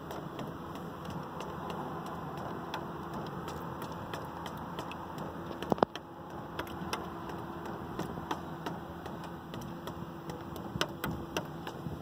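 Water drops falling irregularly into and around a cut-off plastic bottle, each landing as a sharp tick, over a steady hum. One louder pair of drops lands about six seconds in.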